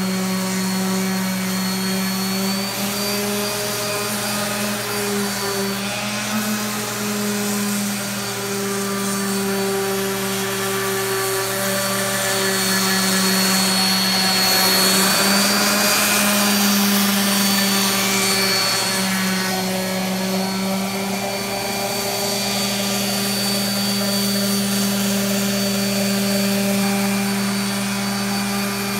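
Steady mechanical hum of a running motor holding one pitch, with a rushing hiss that swells a little around the middle.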